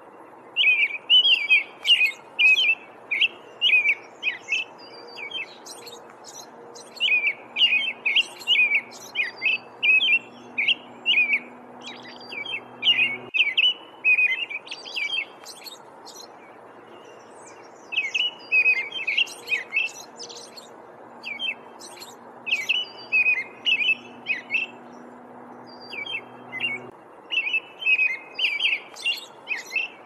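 American robin singing: short warbled phrases in quick runs of several, with pauses of a few seconds between the runs.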